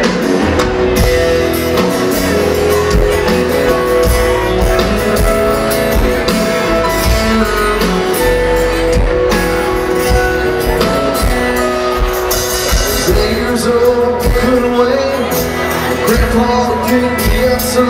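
Live country-rock band playing the intro of a song, with acoustic and electric guitars, keyboard and drums keeping a steady beat.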